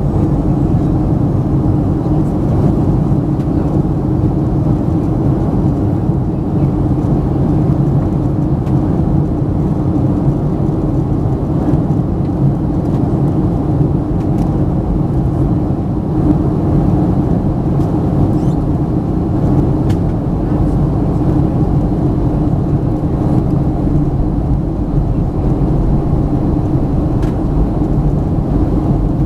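Steady low cabin drone of a Boeing 737-900 in descent, from its CFM56-7B turbofan engines and the air rushing past, heard inside the cabin from a window seat beside the wing. It holds even throughout, with no change in pitch or level.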